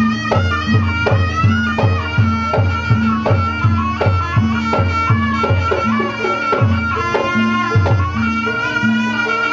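Kuda kepang (jaranan) ensemble music: a reed wind instrument, the slompret, plays a held, wavering melody over regular drum strokes and repeated low notes.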